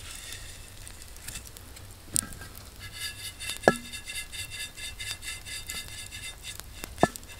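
Dry white granules poured into a cast-iron skillet and swirled, sliding and rasping across the iron as the pan is tilted. Three sharp metallic knocks of the pan ring out, the loudest near the middle.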